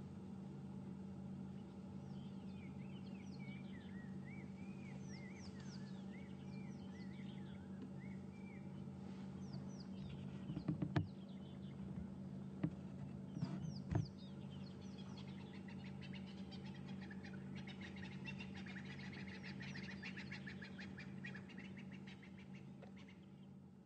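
Wild birds chirping and calling over a steady low hum, with a brief cluster of sharp cracks and knocks about halfway through and a dense, rapid trilling chorus later on.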